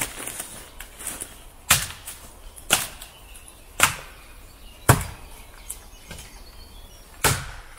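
A Fiskars XA3 machete chopping into a spruce trunk: six sharp blows of steel into wood, about one a second, with a longer pause before the last.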